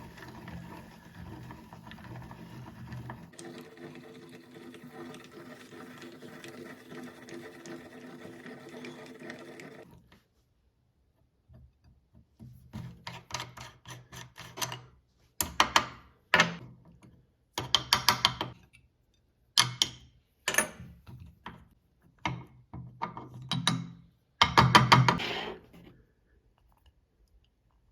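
Meat grinder running steadily with a mechanical hum, which stops about ten seconds in. After a short pause come a dozen or so louder, uneven bursts of crushing and crackling as pieces of cake are forced through the grinder, the longest and loudest near the end.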